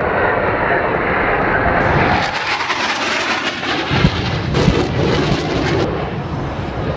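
Jet aircraft in formation flying over with a steady loud rush. After a cut, two sharp bangs about four seconds in, the second a moment after the first, over continued noise.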